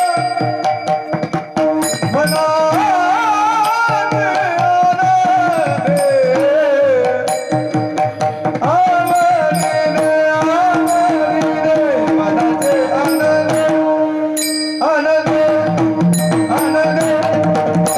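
Warkari devotional bhajan: a male voice sings long, wavering held notes over a steady harmonium drone, while brass hand cymbals (taal) strike and a two-headed hand drum (pakhawaj) keeps a regular beat. The music drops out briefly about three-quarters of the way through, then comes back in.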